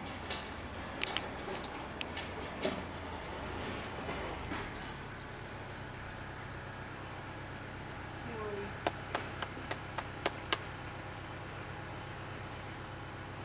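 Light metallic clicks and jingles of horse tack as a horse is saddled: saddle and girth buckles and bridle fittings knocking together. They come in a cluster over the first few seconds and another about nine to ten seconds in, over a steady low hum.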